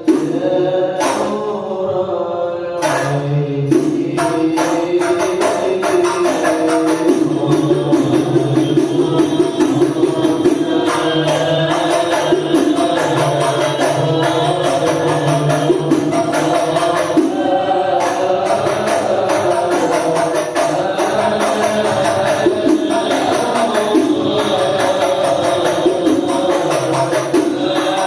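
Shalawat, Islamic devotional singing, with a sung melody over a steady, busy rhythm of frame drums.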